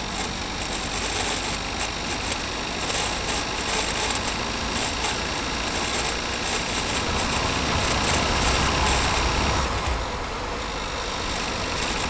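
Audi A3 running with its gearbox making an unusual noise that the owner cannot identify, heard close up from under the car beside the gearbox casing. The sound grows louder and deeper about seven seconds in and eases back near ten seconds.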